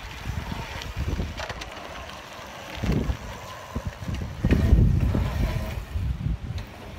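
Wind buffeting the microphone in uneven low gusts, heaviest a little past halfway through.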